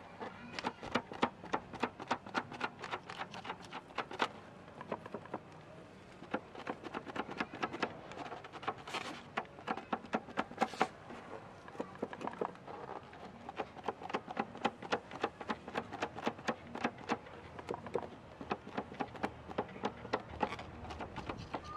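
A rubber balloon dabbed again and again against a painted flower pot: a quick, irregular run of light taps, several a second.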